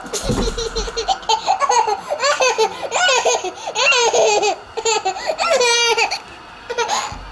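A toddler laughing: several bouts of high-pitched giggling one after another, with brief pauses between them.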